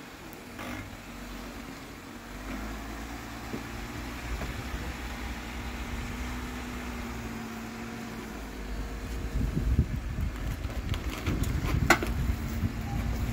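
A 4x4's engine running at crawling speed, a steady hum that grows louder over the last few seconds, with a couple of sharp knocks near the end.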